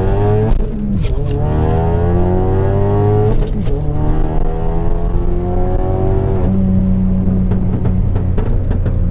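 Car engine accelerating hard through the gears: its pitch climbs, falls back at each upshift about half a second, three and a half and six and a half seconds in, then holds steady at cruise. It is described as sounding "real nice."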